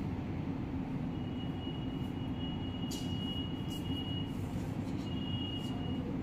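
Steady low rumbling background noise, with a faint high thin tone that comes and goes in the middle and a few light ticks.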